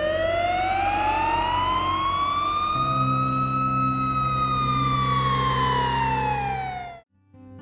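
Police car siren wailing in one slow rise and fall over a steady low drone, cutting off suddenly near the end.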